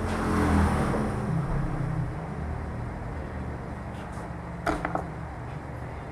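A low steady rumble, loudest in the first second, with two short clicks close together about three-quarters of the way through.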